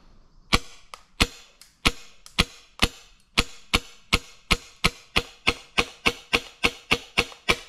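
HPA airsoft pistol firing single semi-automatic shots at a steady pace of about three a second, a sharp crack for each shot, about twenty in all.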